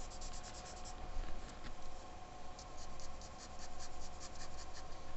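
Soft pastel stick scratching on drawing paper in quick, short back-and-forth strokes, pausing for about a second and a half partway through, over a faint steady hum.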